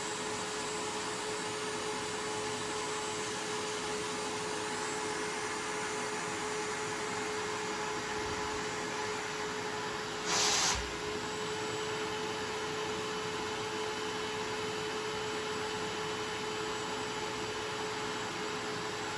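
Carpet extraction vacuum running steadily, with a steady whine, pulling rinse water out of the carpet and pad through a hand extractor tool held flat on the carpet. A brief, louder rush comes about halfway through.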